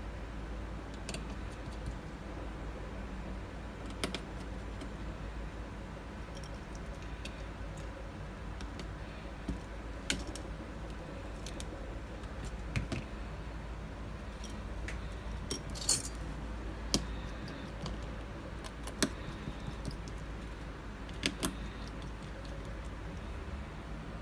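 Small metal parts and tools clicking and clinking against the phone's frame and the bench while an iPhone 7 Plus is taken apart, in scattered single clicks with a short cluster about two thirds of the way in, over a steady low hum.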